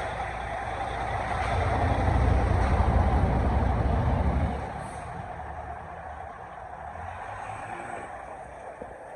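Kenworth W900L semi truck's diesel engine running with a deep rumble that swells for a few seconds, then drops off suddenly about halfway, followed by a short hiss of air.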